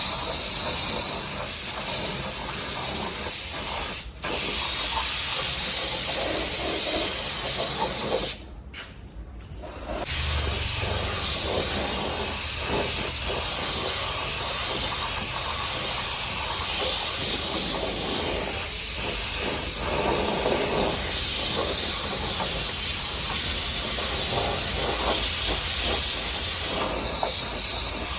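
Compressed-air paint spray gun hissing steadily as base coat is sprayed on a car body. It cuts out for an instant about four seconds in, and again for over a second near the middle, as the trigger is let go.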